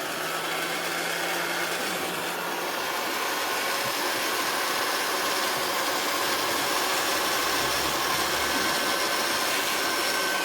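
Electric heat gun running steadily, its fan blowing hot air with a faint whine, used to soften and strip stubborn paint.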